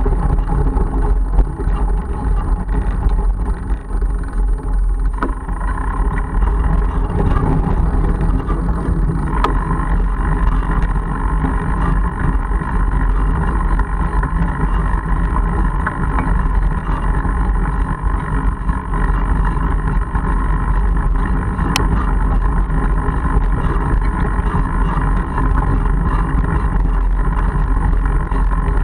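Mongoose Argus fat-tyre bike rolling along a gravel forest road: a steady, loud, low rumble of the tyres on the gravel, heard through the bike-mounted camera, with a faint steady hum joining in about five seconds in.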